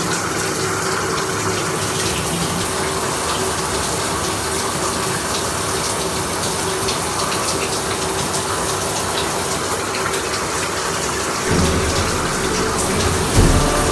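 Water running steadily from a tap or shower head, a constant rushing hiss; a low rumble joins it near the end.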